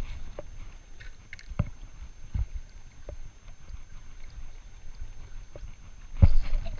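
Low wind rumble on the microphone, with scattered light knocks and clicks from handling the spinning rod, and a louder thump near the end.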